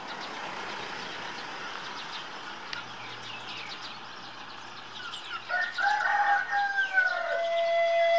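Small birds chirping over a soft background hiss, then a rooster crows once, a curving call about two seconds long starting a little past the middle. A steady held note, like a flute, begins near the end.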